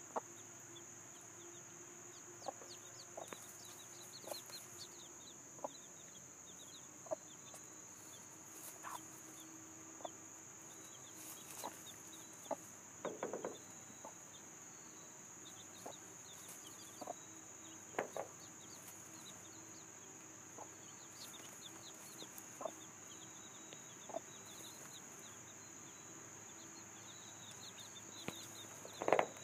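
Dominique hen and her young chicks: the chicks peep with many short, high chirps while the hen gives occasional low clucks, fairly quiet, over a steady high insect drone.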